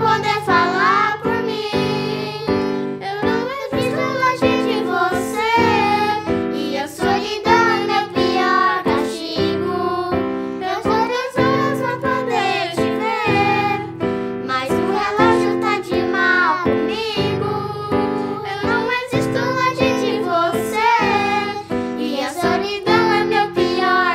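Young girls singing a ballad together, accompanied by piano chords on a Yamaha electronic keyboard.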